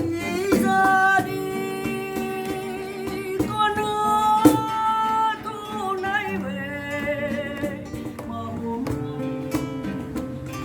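Instrumental music from a song: guitar accompaniment under a melody of long held notes, some of them wavering in pitch.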